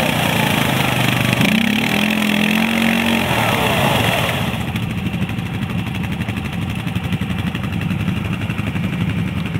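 Quad bike (ATV) engine running under load, revving up about a second and a half in and holding the higher pitch briefly. After that it runs on steadily.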